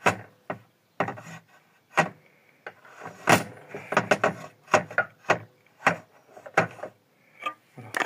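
Plastic washing-machine drain pumps knocked and clattering on a table as they are turned over and set down by hand: a dozen or so sharp, irregular knocks with short pauses between them.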